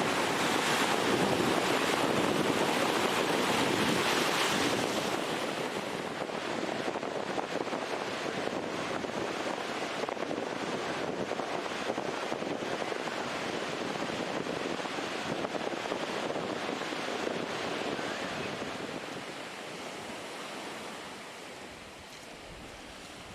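Ocean surf washing in a steady rush of noise, loudest in the first few seconds and gradually quieter toward the end.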